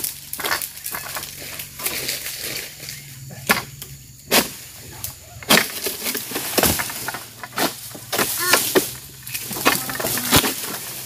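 Long-handled pole sickle cutting oil palm fronds: a run of irregular sharp cracks and snaps as the blade pulls through the frond stalks, with rustling of the palm leaves.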